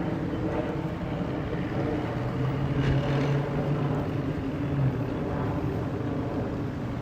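Motorboat engines running at low speed, a steady engine drone that grows stronger for a couple of seconds in the middle.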